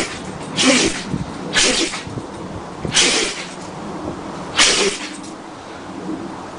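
A run of five sneezes in quick succession, each a short sharp burst, a little over a second apart.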